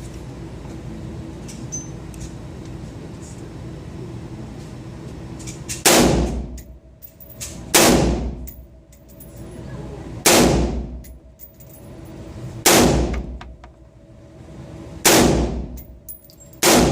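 Six single shots from a Bushmaster AR-15 rifle chambered in .223/5.56, fired one at a time about two seconds apart starting about six seconds in, each with a short ringing tail.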